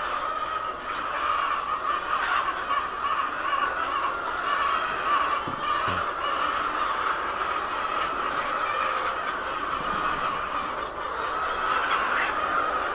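A flock of laying hens clucking and calling all at once, a steady, dense din of overlapping voices.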